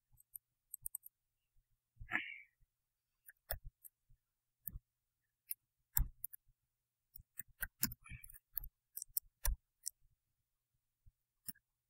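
Light, irregular clicking of a computer keyboard and mouse, scattered single clicks with a few short runs.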